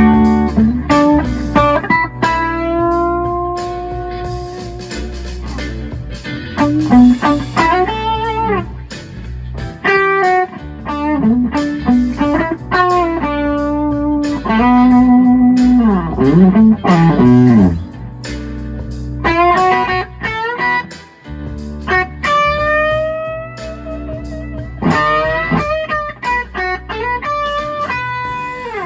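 1973 Gibson ES-345 semi-hollow electric guitar through a BOSS Nextone Stage amp on a crunch (light overdrive) tone, playing a bluesy lead. Its notes bend up and down in pitch, with some held and some picked in quick runs.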